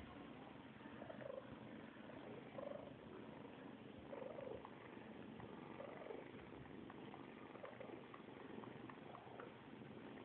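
Faint, steady purring of a mother cat and her kittens while the kittens suckle.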